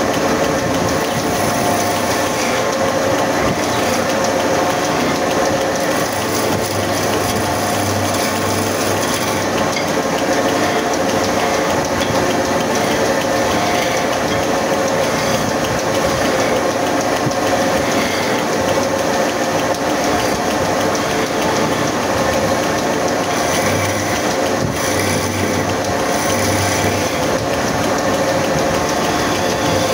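Wood lathe spinning a wooden spindle while a hand-held gouge cuts into it: a steady mechanical whir with several held tones, under the hiss of the tool shaving the wood.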